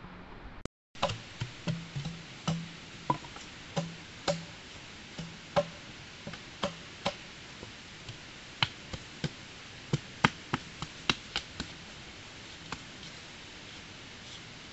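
A series of irregular sharp knocks or taps, one or two a second, stopping about twelve seconds in, after a brief dropout near the start.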